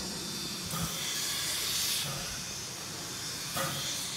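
Steam locomotive venting steam: a steady hiss that swells about a second in and again near the end.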